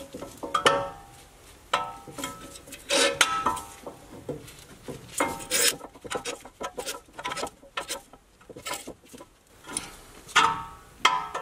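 Metal clicks and clinks from a screw-type brake caliper piston compressor tool as its handle is turned, screwing the caliper piston back into its bore. The clicks come at an irregular pace, and several short ringing metal clanks stand out among them.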